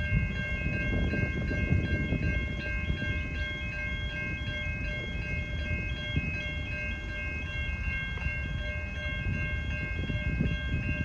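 V/Line passenger train pulling out of the station: a low rumble. Over it runs a steady electronic chiming that alternates between high tones in a quick, regular pattern.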